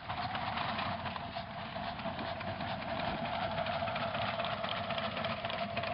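Live-steam scale locomotive starting off: rapid hissing steam chuffs and clatter from its cylinders and running gear, under a long, steady high-pitched tone.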